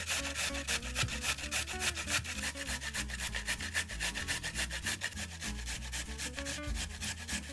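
A carrot being grated on a fine grater: quick, even scraping strokes, several a second, that stop at the very end.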